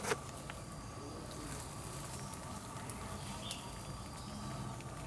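Hornets swarming over their exposed paper comb nest, a low steady hum, with one sharp click just after the start.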